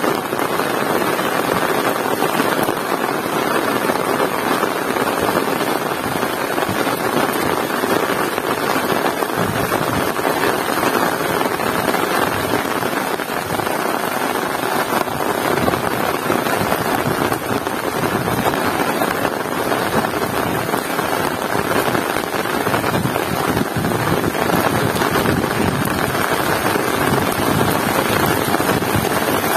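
Heavy rain pouring steadily, a dense, even hiss with no letup.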